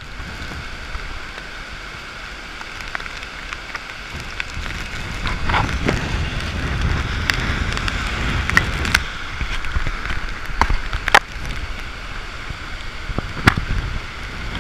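Heavy thunderstorm downpour with gusting wind buffeting the microphone, the low rumble of the gusts growing stronger about four seconds in. Scattered sharp taps of raindrops cut through it several times.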